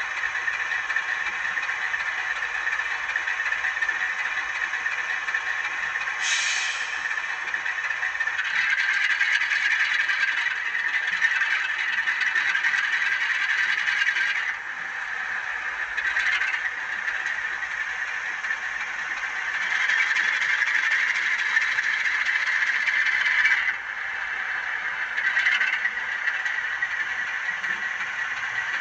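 Sampled class 46 diesel engine sound played through the small sugar-cube speaker of an N gauge model locomotive's DCC sound decoder as it runs along the track, a steady rattling engine note with little bass. The engine note steps up about eight seconds in and again near twenty seconds, and drops back around fourteen and twenty-four seconds, with a few short brighter bursts along the way.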